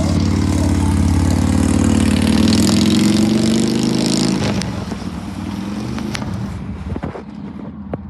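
A motor vehicle's engine passing close by, loud for about four and a half seconds, then fading away.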